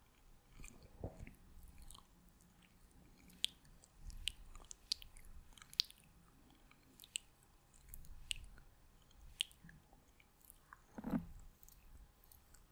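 Close-miked mouth sounds: scattered wet clicks and smacks of the lips and tongue, with a soft low thump about a second in and a louder one near the end.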